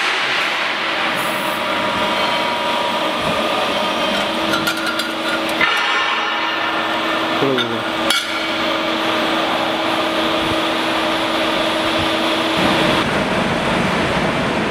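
Servo-electric CNC press brake at work in a workshop: a steady machine hum and whir with a few sharp metallic clicks, and a short falling whine about seven and a half seconds in as the ram slows. The noise changes character near the end.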